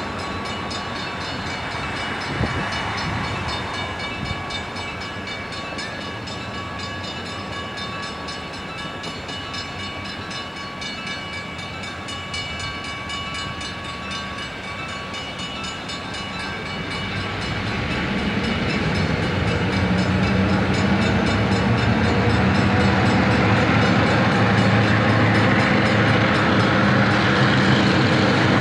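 A train rolling past on the rails, with a couple of small knocks early on. In the last ten seconds a diesel locomotive's engine grows steadily louder as it approaches.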